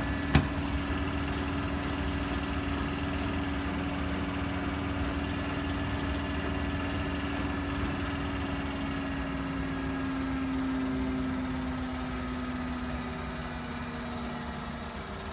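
Bosch washing machine drain pump running in its service-mode test after being unclogged, a steady hum. A single sharp click about half a second in, and the hum eases slightly near the end.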